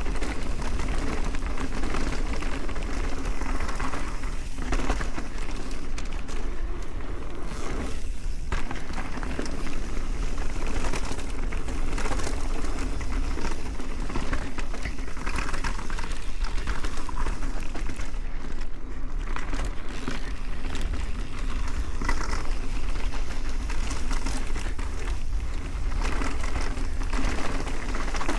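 Mountain bike riding fast down a dirt trail: steady wind rush on the camera microphone over the crunch and rattle of the tyres and bike rolling across rough ground.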